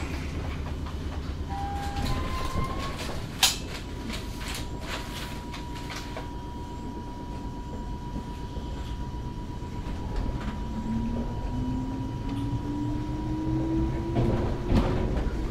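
Interior running sound of a JR West 105 series electric train at a standstill: a steady low rumble, a few clicks and a sharp knock about three and a half seconds in. From about ten seconds the traction motors' whine starts and rises steadily in pitch as the train pulls away.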